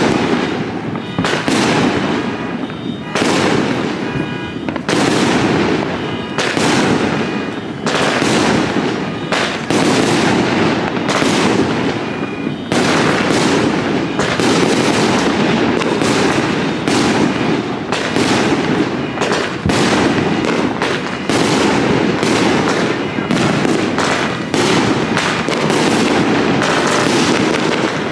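Aerial fireworks going off in quick succession: a steady string of bangs, one every half second to a second, with crackling between them.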